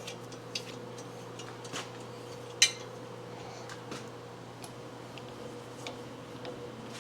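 Metal hand tools and parts handled on a workbench: scattered light clicks and clinks, with one sharper clink about two and a half seconds in, over a steady low hum.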